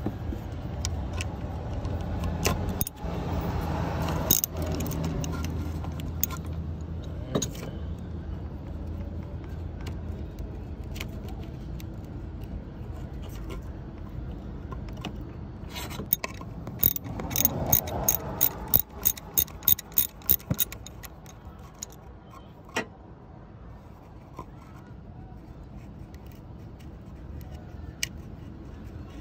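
Socket wrench and small metal parts clinking as the bolts of an engine's ignition control module are loosened and the module worked free. About halfway through comes a quick run of around a dozen clicks, roughly three a second, with a low steady hum under the first several seconds.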